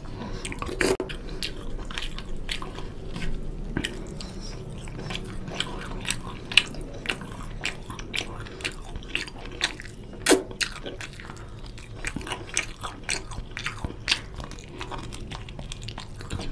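Wet chewing and mouth smacking of a person eating oily mutton curry by hand, close to the microphone, with many short sharp smacks and clicks and a couple of louder ones.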